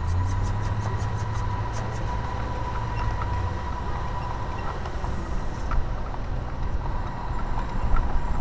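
Steady low road rumble heard from a horse-drawn carriage moving through street traffic, with a motor vehicle's engine hum close by for the first few seconds and a few faint clicks.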